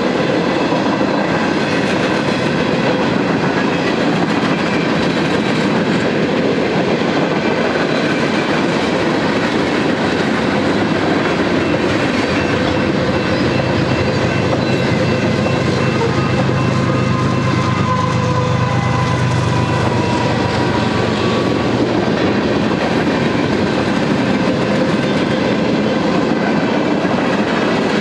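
Union Pacific manifest freight cars (covered hoppers, then autoracks) rolling steadily past, with the clickety-clack of wheels over rail joints over a continuous rumble.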